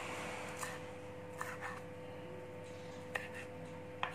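Kitchen knife slicing through garlic chives onto a cutting board: several short, sharp taps of the blade hitting the board at irregular intervals, the loudest about three and four seconds in.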